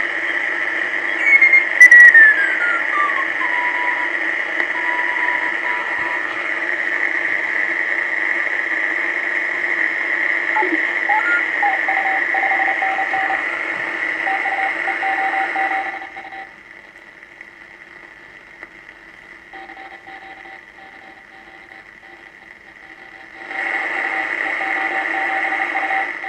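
uBitx v4 HF transceiver's receiver audio, the sound its owner calls bad: a narrow band of hiss with a steady high whistle over it. About a second in, another whistle slides down in pitch and settles lower, and shorter tones come and go near the middle. About sixteen seconds in the hiss drops away, returning near the end.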